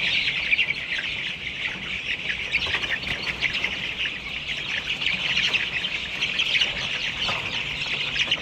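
Dense, continuous chorus of many young chicken pullets, about 25 days old, cheeping in their cages. A steady low hum runs beneath.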